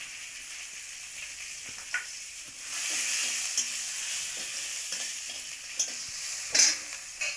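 Capsicum frying in hot oil in a kadai and being stirred with a spatula: a steady sizzle that grows louder about two and a half seconds in. Several short knocks and scrapes of the spatula against the pan come through it.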